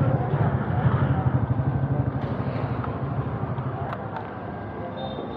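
Motorcycle engine running while riding, a steady low pulsing note that eases off and gets quieter toward the end.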